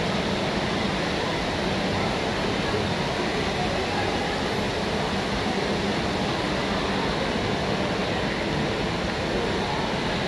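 Steady hubbub of a crowded public place, many people talking at once with no single voice standing out.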